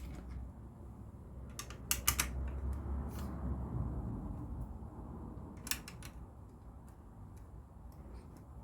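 Plastic LEGO pieces clicking as they are handled and pressed together, in small clusters of sharp clicks with scattered fainter ticks.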